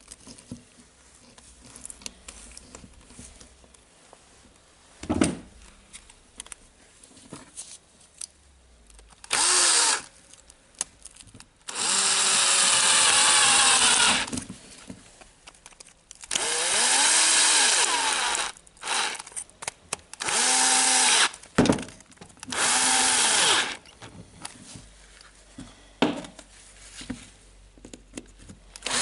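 A cordless drill/driver running in five short bursts, its motor pitch rising and falling in each, as a long screwdriver bit turns the screws of a drill's gearbox housing. Light clicks and handling of metal parts come before the first burst.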